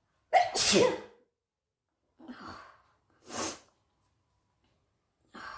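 A person sneezing, set off by tickling the nose with a blade of grass. One loud sneeze comes about half a second in, followed by three quieter, shorter bursts around two, three and a half, and five seconds.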